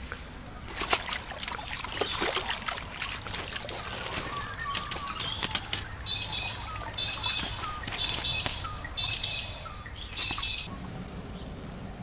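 A small carp splashing and flapping in shallow water, with quick irregular slaps and water trickling. In the second half a bird calls five times, about once a second.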